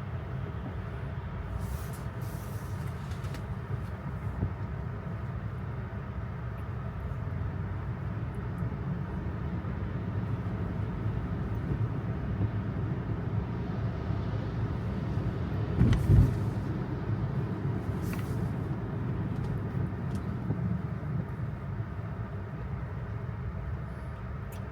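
Steady low road and tyre rumble inside the cabin of a Tesla electric car on the move, with one thump about two-thirds of the way in.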